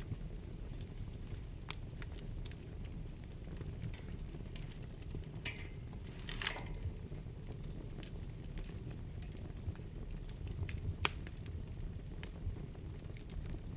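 Wood fire burning in a fireplace: a steady low rumble of flames with scattered sharp crackles and pops from the burning logs, a small cluster of them about halfway through.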